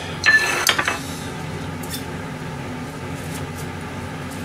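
Kitchenware clattering on a stainless steel counter: a quick run of knocks and rattles in the first second, then a steady low hum.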